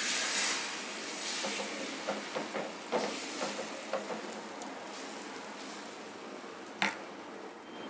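Egg batter sizzling as it is poured from a steel ladle onto a hot flat pan and spread out; the sizzle is strongest at first and fades. Light taps and scrapes of the ladle on the pan, with one sharper click near the end.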